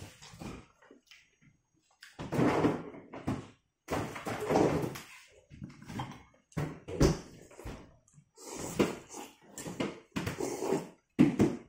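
A person eating rice-noodle fish soup: repeated slurps and chewing in short bursts with brief silences between, and a few knocks of the spoon and chopsticks against the ceramic bowls.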